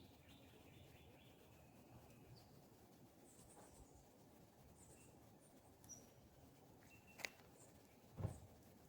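Near silence: faint outdoor background with a few faint high chirps, a sharp click a little after seven seconds and a low thump about a second later.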